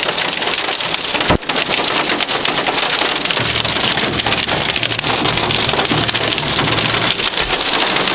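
Hail drumming on a car's roof and windshield, heard from inside the car: a dense, steady clatter of many small hits, with one louder knock about a second in.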